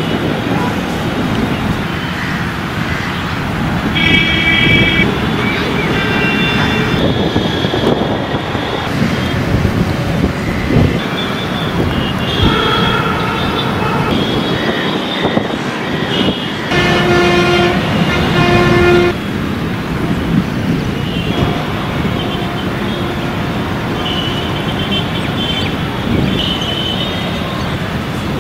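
Road traffic running by, with vehicle horns sounding several times, including two longer blasts close together about two-thirds of the way through.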